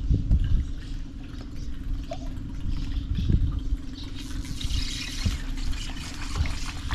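Water splashing and trickling against a fishing boat, growing hissier about halfway through, over a steady low hum.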